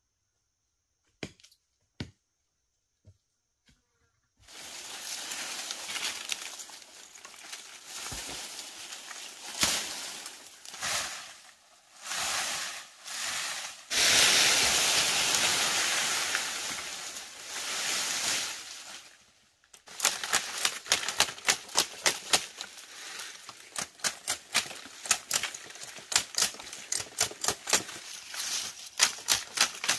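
Leafy bamboo branches dragging and rustling over dry leaf litter, then a fast series of sharp machete strikes, several a second, trimming the side shoots off a bamboo pole.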